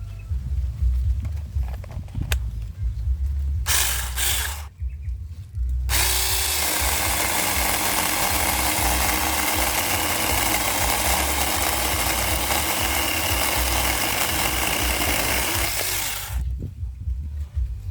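Dagmara 6-inch mini chainsaw run up briefly about four seconds in, then cutting into teak wood, running steadily for about ten seconds before stopping abruptly. A low rumble sits underneath.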